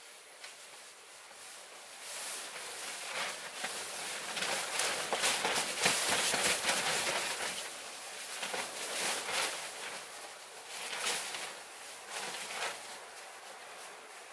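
Wind gusting, rising and falling in waves, loudest a few seconds in, with scattered short rustles and knocks.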